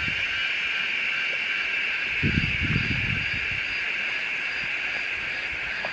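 Steady insect chorus, crickets or cicadas, a constant high-pitched trill, with a few low dull knocks about two to three seconds in.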